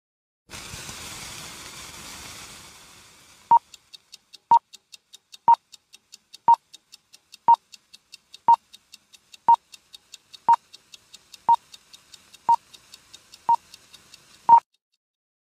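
Old-film countdown leader sound effect: a short, sharp beep once a second, twelve in all, the last the loudest, over a faint, faster ticking at about four a second. It opens with a hiss that fades away over the first few seconds before the beeps begin.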